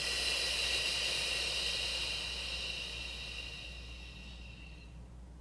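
A long, steady exhale on a voiceless "fff" consonant, air hissing between upper teeth and lower lip. It fades gradually as the breath runs out and stops about five seconds in.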